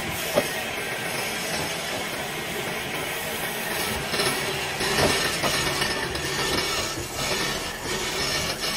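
Wood lathe running with a tool working the spinning wood: a steady hissing scrape with a few sharp clicks, the loudest about half a second in and around four to five seconds in.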